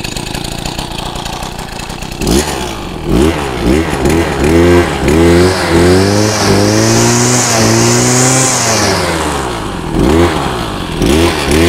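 Nikkari SXD-50N petrol brush cutter, warm-started without choke, idling for about two seconds and then revved in a series of throttle blips. In the middle it is held at high revs for several seconds with a high whine on top before dropping back, and it is blipped quickly again near the end.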